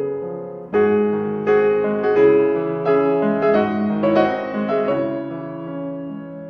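Background piano music: a run of sustained piano notes and chords, struck every half second or so and fading slowly toward the end.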